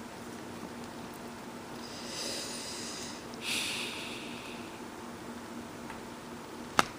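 Faint hiss with two brief hissing scrapes about two and three and a half seconds in, then one sharp snap near the end as the OnePlus One's screen is pried off its plastic frame.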